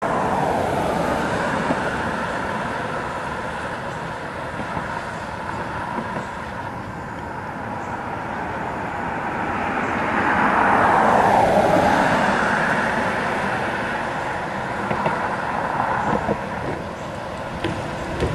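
Road traffic with an electric trolleybus and cars driving by, a steady traffic noise that swells as one vehicle passes close, loudest about eleven seconds in.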